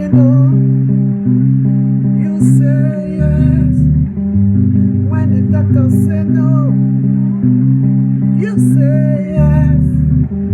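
Music: a band playing, with bass guitar notes changing every half second or so under guitar and a singing voice.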